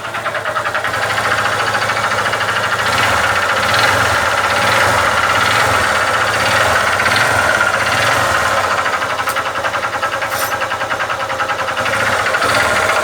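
Honda CG 150 Titan single-cylinder four-stroke motorcycle engine running with a steady, rapid metallic knocking from inside the engine. The knock is typical of a worn connecting rod or piston, and the mechanic takes it for the connecting rod.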